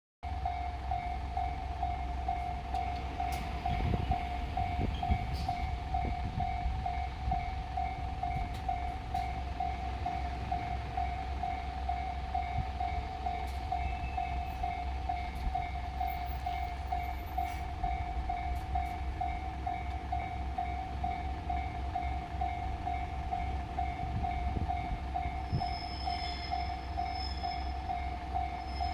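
Japanese level-crossing warning bell ringing in a fast, even repetition throughout, over the low rumble of a diesel railcar's engine, with a few sharp knocks about three to six seconds in.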